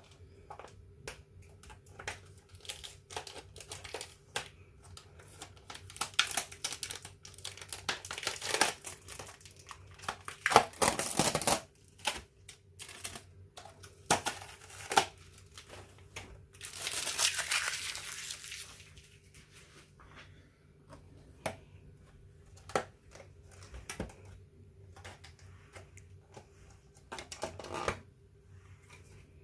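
Mail-order livestock packaging being opened by hand: repeated crinkling and tearing with scattered clicks and taps, the loudest rustles a little before and just after the middle.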